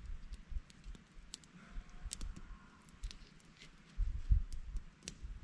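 Small twig campfire crackling, with scattered sharp pops and snaps. A low rumble comes in gusts about four seconds in.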